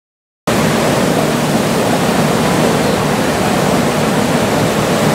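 Steady rushing noise, even and unbroken, starting abruptly about half a second in after a moment of dead silence.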